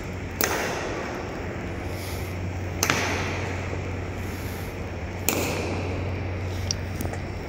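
Three sharp, echoing clacks about two and a half seconds apart, over a steady low hum: a ceremonial honor guard's boots striking a hard floor in slow, stamped march during the changing of the guard.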